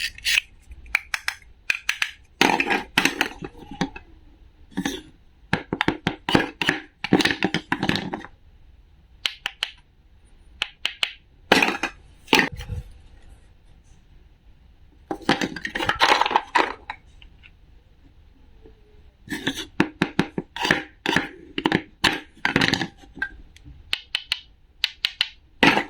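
Clusters of rapid, sharp clicks and knocks from hard objects being handled, coming in bursts of a second or so with short quiet gaps between, including a longer lull near the middle.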